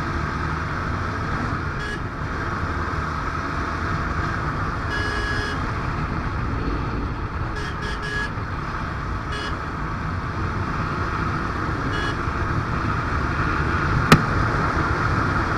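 Royal Enfield Bullet 350's single-cylinder engine running steadily while riding through traffic. A vehicle horn toots briefly about five seconds in, and a single sharp click sounds near the end.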